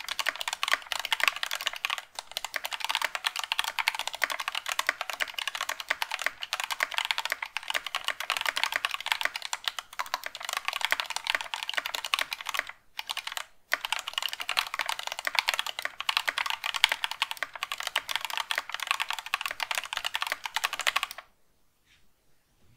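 Continuous fast typing on a GK61 60% keyboard fitted with stock, unlubed Thicthock Marshmallow progressive linear switches (nylon housing, POM stem). The keystrokes sound hollow, with a bit of spring ping. Typing breaks off twice for a moment about halfway and stops about a second and a half before the end.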